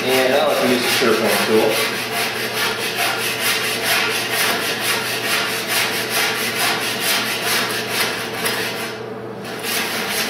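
Small block plane shaving a wooden paddle blank in quick, repeated strokes, the blade cutting curled shavings off the loom's edge.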